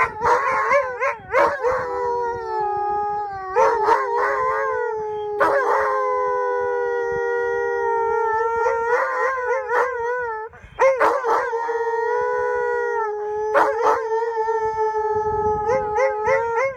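Two huskies howling together, long held notes that waver in pitch and overlap each other, with a short break about ten seconds in.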